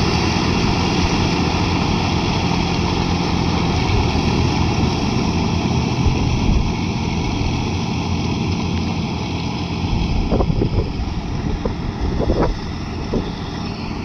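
John Deere tractor's diesel engine running steadily as it churns a rotary puddler through flooded ground, with water splashing. The engine fades as the tractor pulls away, and wind buffets the microphone over the last few seconds.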